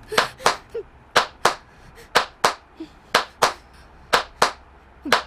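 Hand claps in an even rhythm: pairs of sharp claps about a third of a second apart, one pair a second, five pairs and a last single clap near the end.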